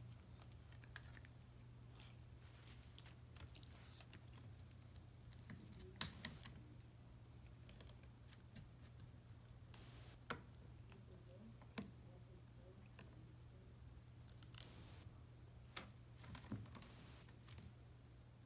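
Irish terrier chewing a dry branched stick: scattered sharp cracks and snaps of wood as its teeth break bits off, the loudest about six seconds in, with a quick run of cracks a little past halfway.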